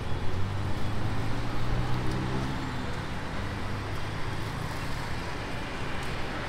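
Road traffic noise, with a vehicle engine humming steadily for the first two seconds or so before it fades into the general traffic.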